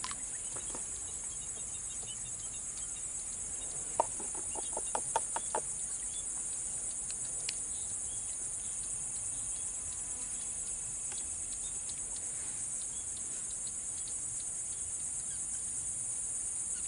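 Insects in the swamp grass, likely crickets, keep up a steady high-pitched buzzing. About four seconds in, a bird gives a quick run of about seven short notes.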